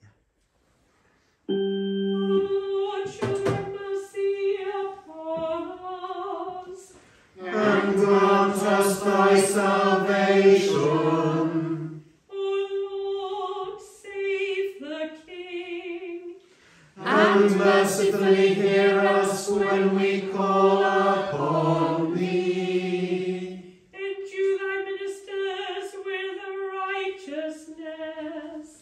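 Sung preces and responses: a woman cantor chants each versicle alone, mostly on one held reciting note, and the congregation answers in unison, louder and fuller. Two exchanges are complete, and the cantor starts a third versicle near the end.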